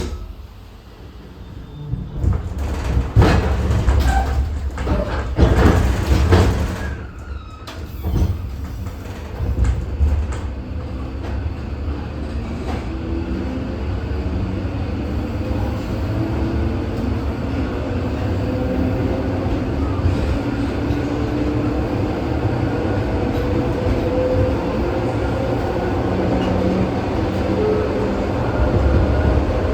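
ED4M electric multiple unit's sliding doors shutting with a knock, then the train pulling away: heavy rumbling and clanking of the wheels for several seconds, followed by steady running noise with a whine that slowly rises in pitch as it gathers speed.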